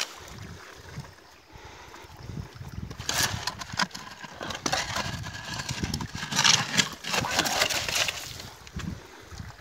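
Perforated plastic sand scoop on a long handle digging wet gravel out of a water-filled hole in rock, with pebbles scraping and rattling. It is quieter for about the first three seconds, then comes a run of irregular scrapes and clatters that is loudest a little past the middle.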